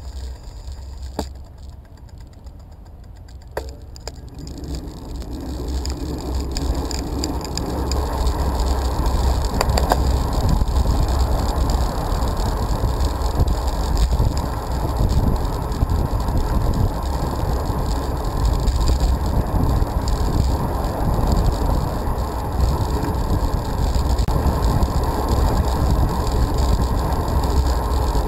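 Car engine and tyre noise heard from inside the cabin. It is quiet at first, with two sharp clicks, then builds from about four seconds in as the car pulls away and gathers speed, settling into a steady low rumble of driving.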